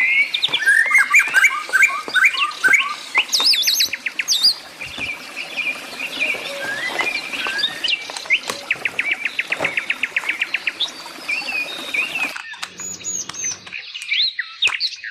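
Several songbirds chirping and calling with whistled, gliding notes, and a fast trill of repeated notes about nine seconds in. The background hiss under the birdsong stops abruptly near the end while the chirping goes on.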